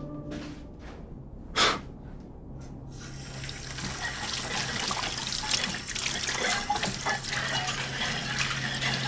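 Kitchen faucet running a steady stream of water into the sink, coming in about three seconds in. A single short, sharp sound about a second and a half in is louder than the water.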